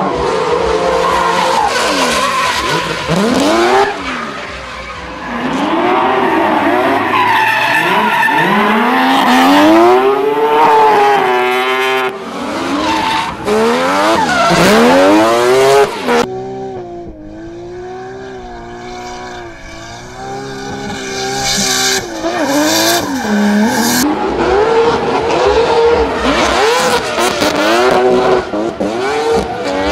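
Drift cars' engines revving hard, rising and falling in pitch again and again, over tyres squealing and skidding. About halfway through the sound changes abruptly and dips for a few seconds, then builds up again.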